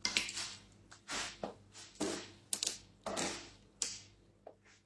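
Someone drinking from a plastic bottle: a series of short, separate gulps and crackles of the thin plastic, roughly one every half second, fairly quiet.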